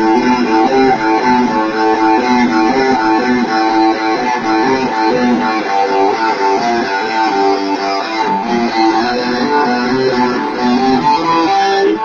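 Guitar played during a sound check: a continuous run of ringing chords and notes, changing about every half second.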